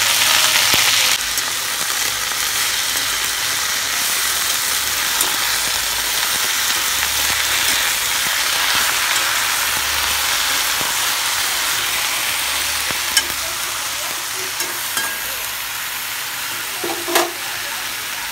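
Chopped mustard greens sizzling in hot oil in a wok as they are stir-fried with a spatula. The steady sizzle is loudest in the first second and slowly fades, and there are a couple of short knocks in the second half.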